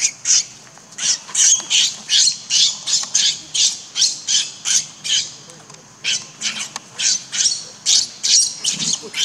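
Infant macaque screaming in distress, a fast run of short, shrill cries, about two or three a second with a brief lull midway, while an adult macaque grabs and drags it.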